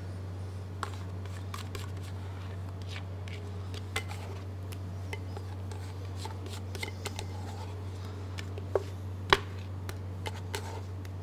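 Whipped cream being tipped out of a stainless steel stand-mixer bowl into a steel mixing bowl: scattered light clinks and knocks of metal on metal, the sharpest about nine seconds in. A steady low hum runs underneath.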